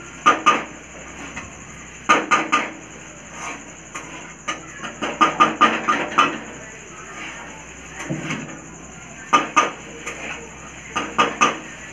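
Metal spatula clanking and scraping against a metal kadhai as noodles are stirred and tossed, in clusters of sharp knocks every couple of seconds.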